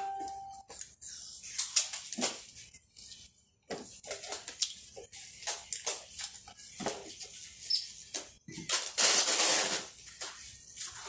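Packing tape being pulled off its roll in repeated short, rasping rips, with one longer, louder pull about nine seconds in, while a cardboard box is being taped up.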